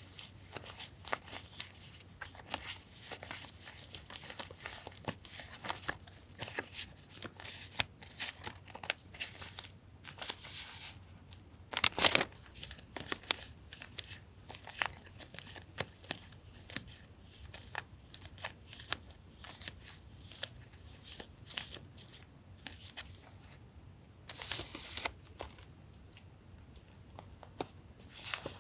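Paper and sticker sheets being handled, with light crinkling, rustling and small irregular taps. A louder rustle comes about twelve seconds in and another near the end.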